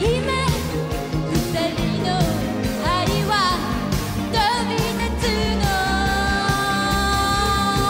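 A woman singing a pop song with band backing of drums and bass. Her melody moves up and down, then she holds one long note through the last two seconds or so.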